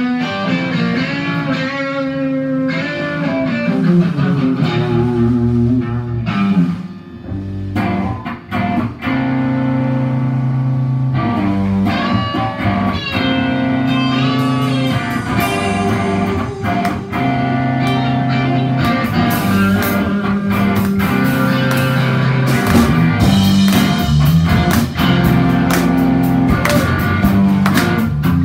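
Live band playing with electric guitars, bass guitar and drums, the guitars carrying the melody. Drum and cymbal hits get busier in the second half.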